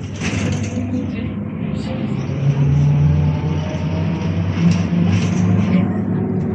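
AKSM trolleybus heard from inside while under way: a steady low hum of the electric drive and running gear, growing louder about two seconds in, with a faint whine rising slowly in pitch as it gathers speed.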